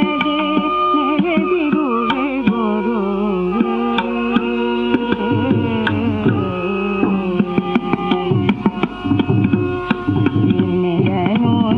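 Carnatic devaranama music in khanda chapu, a five-beat cycle. An ornamented melody with sliding, wavering notes runs over a steady drone, with hand-drum strokes throughout.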